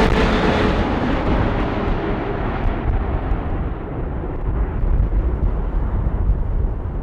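Jet airliner that has just passed close by, its engine noise fading away as the high end dies down over the first few seconds. A low rumble of wind on the microphone stays underneath.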